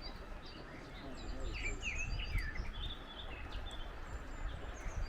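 Small birds chirping in short, quick notes that glide up and down, busiest about one to three seconds in, over a steady outdoor hush with a low rumble.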